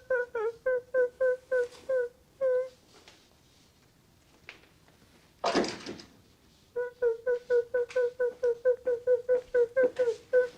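A person's voice humming short, clipped notes on one pitch, three or four a second, each dipping slightly. It stops for about four seconds, with one short noisy burst about five and a half seconds in, then starts up again.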